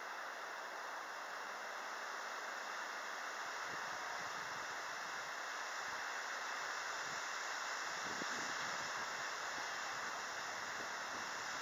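Steady outdoor background noise, an even hiss with no distinct events, growing slightly louder.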